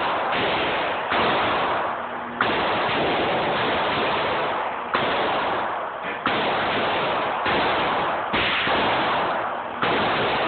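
A string of gunshots at a shooting range, sudden bangs about one to three seconds apart, with loud continuous range noise and echo filling the gaps between them.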